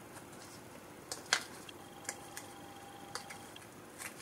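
A sheet of translucent vellum paper being handled and creased by hand, giving a few light crinkles and clicks. The sharpest comes about a second and a half in.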